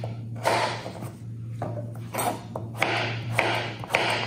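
Chef's knife cutting raw butternut squash into cubes on a cutting board: a run of short slicing strokes, about two a second, some ending in a sharp tap of the blade on the board. A steady low hum sits underneath.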